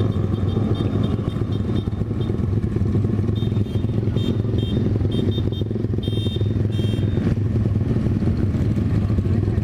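Honda GL Pro single-cylinder motorcycle engine running steadily, with a few short high-pitched beeps in the middle.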